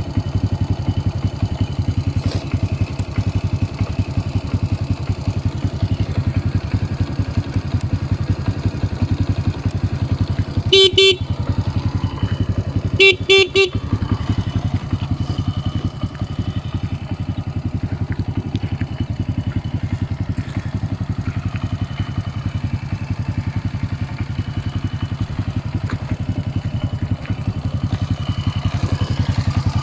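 Honda C70's single-cylinder four-stroke engine idling steadily with a fast, even pulse. About a third of the way in, its horn gives a short beep, then a couple more quick beeps shortly after.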